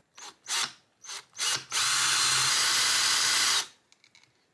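Cordless drill boring a hole into a small block of wood: four short bursts on the trigger, then a steady run of about two seconds that stops suddenly. A few faint clicks follow.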